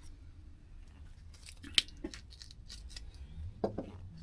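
Scattered small clicks and scrapes of hands and a tool working the old carburettor and its stiff rubber fuel lines off a Stihl FS160 brushcutter, with one sharper click a little under two seconds in.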